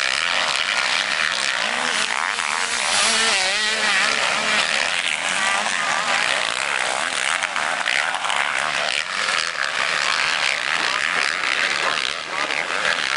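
Several motocross bikes racing on the track, their engines revving, the pitch rising and falling as they ride through the corners.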